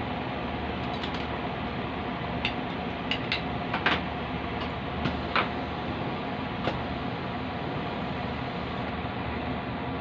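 Steady hiss of a flameworking bench torch's flame, with a scattering of short sharp clicks between about one and seven seconds in, the loudest around four seconds.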